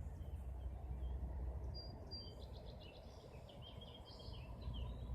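Faint bird chirping, a short run of high calls in the middle, over a low steady rumble.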